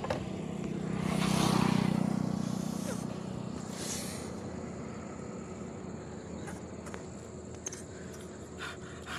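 A motor vehicle goes past. Its engine hum and road noise swell to a peak about one and a half seconds in and fade within a couple of seconds, with a smaller swell near four seconds, then steady background noise with a few faint clicks.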